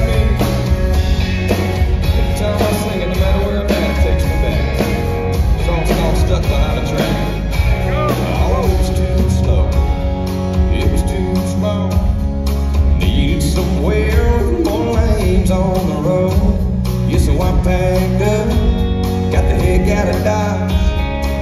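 Live country song: a male singer with strummed acoustic guitar over a band with a steady drum beat and heavy bass.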